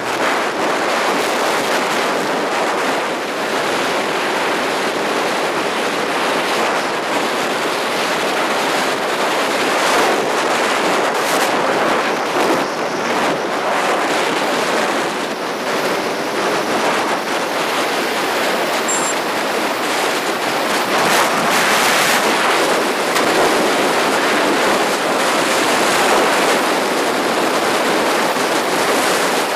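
Steady rush of wind buffeting the microphone of a camera on a motorcycle moving at speed, with no distinct engine note standing out.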